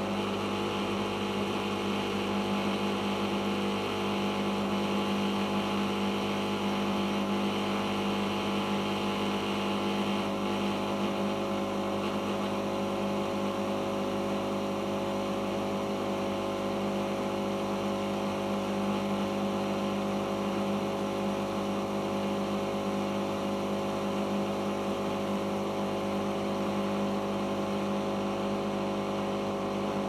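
Siemens iQ1430 washing machine spinning its drum at a steady 1000 rpm in the intermediate spin after the first rinse: an even motor hum and whine that holds the same pitch throughout.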